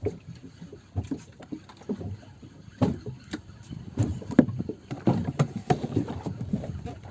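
Irregular knocks, thuds and splashes on a small fishing boat: water slapping the hull and gear being handled aboard.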